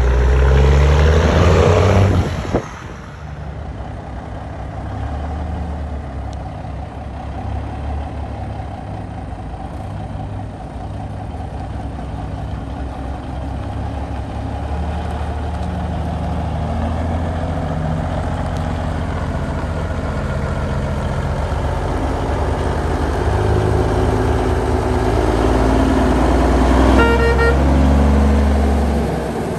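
Heavy truck engines running, loudest for the first two seconds or so before dropping back to a steady run. A short truck horn blast sounds near the end.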